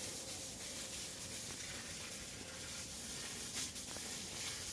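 Faint steady high hiss with a few soft rustles.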